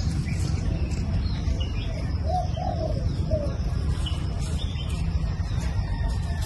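A dove cooing, a few low calls between two and three and a half seconds in, with small birds chirping higher up, over a steady low rumble.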